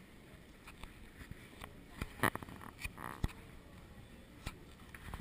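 Faint room noise with a few scattered knocks and clicks, the loudest cluster about two seconds in.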